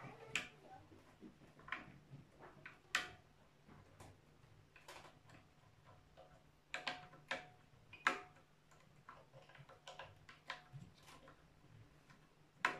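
Irregular small clicks and taps of plastic parts being handled as batteries are fitted into a circular saw's laser guide, some clicks ringing briefly, over a faint steady low hum.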